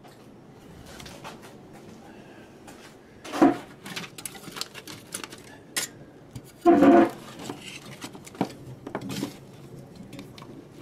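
Handling noise: scattered clicks and light clattering of objects and the camera being moved about on a workbench. There is a louder knock about a third of the way in and another just past halfway.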